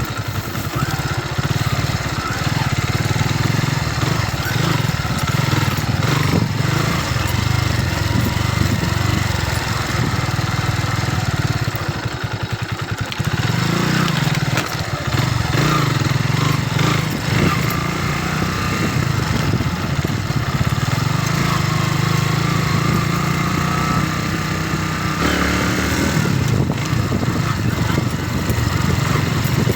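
Kawasaki W175TR motorcycle's single-cylinder four-stroke engine running steadily under way, easing off briefly about twelve seconds in so that the single firing pulses can be heard, then pulling again.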